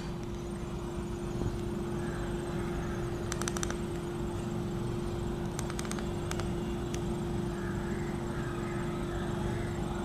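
Steady low background hum with one constant mid-pitched tone running through it, and a few faint light clicks around the middle.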